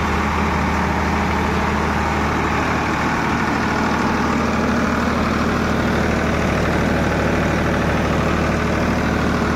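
Farmtrac 50 (Ford 3600) tractor's three-cylinder diesel engine, recently overhauled, running steadily at about 1500 rpm with no load.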